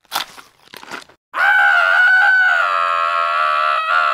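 Cartoon onion crying: a long, high-pitched wail held steady, starting about a second and a half in, after a couple of short noises.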